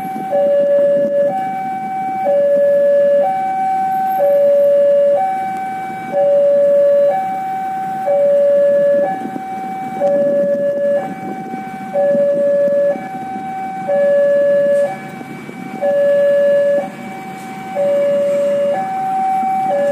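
Railway level-crossing warning alarm sounding a steady two-tone high-low pattern, each tone about a second long, warning of an approaching train. A low rumble runs underneath.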